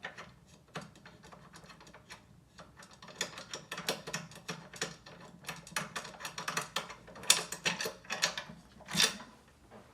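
Small drum hardware being handled: quick irregular clicking and rattling, busiest in the middle, with a couple of louder knocks near the end.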